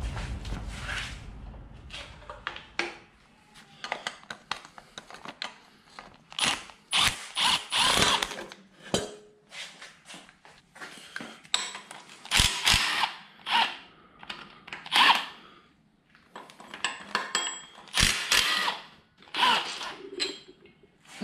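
Power tool running in many short bursts, with a few sharp clicks in between, undoing the bolts that hold the air-conditioning compressor to the engine block.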